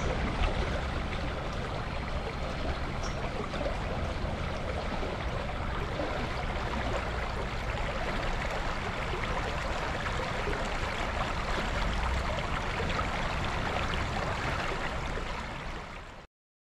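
Shallow creek water rippling steadily over rocks in a riffle, heard close to the surface with a low rumble underneath. It fades slightly and then cuts off abruptly just before the end.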